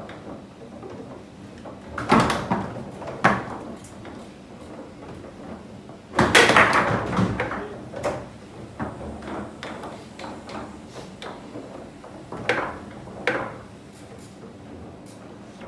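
Foosball table in play: sharp knocks of the ball and the rod men striking, a pair about two and three seconds in and another pair near the end. The loudest is a hard bang about six seconds in that trails off over about a second.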